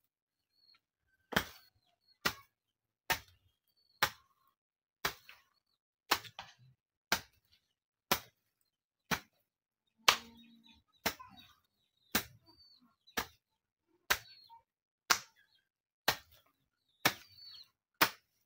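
A jembe (hand hoe) chopping into soil, one strike roughly every second, about eighteen strikes in a steady rhythm.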